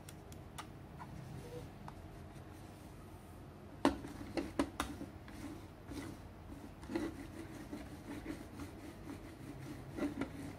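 A Razer Viper Mini gaming mouse set down on a desk with a sharp knock about four seconds in, then slid quickly back and forth, its feet rubbing and scraping on the desk surface with scattered clicks and knocks.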